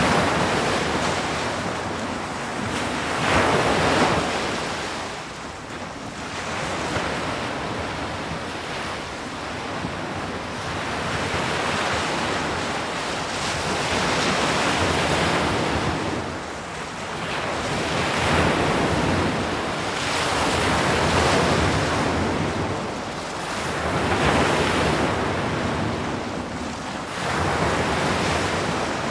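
Sea waves breaking on a shore in a steady wash of surf, swelling and receding every few seconds.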